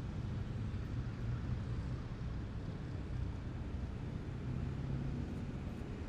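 Engines of heavy military vehicles running with a steady low drone as a column passes along a street.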